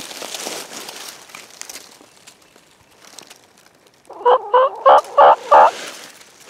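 A wild turkey gobbler gobbles once, close by: a rapid rattling series of about five notes lasting about a second and a half. Before it, dry leaves rustle underfoot.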